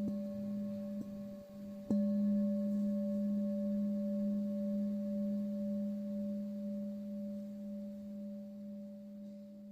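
Tibetan singing bowl struck twice, a light tap about a second in and a firmer strike near two seconds. It rings with a steady low hum and a higher overtone that slowly fade away.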